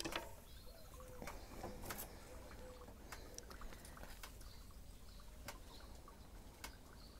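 Faint, irregular crackles and snaps from a charcoal and wood fire burning in an Ooni Karu 12 pizza oven.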